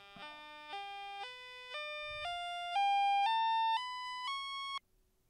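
A rising scale of ten buzzy computer beeps, each held about half a second and stepping up evenly in pitch, ending a little before the last half second. It is a Turbo Pascal sound() test, the PC speaker tone emulated on a Commodore CBM-II and played through its SID chip.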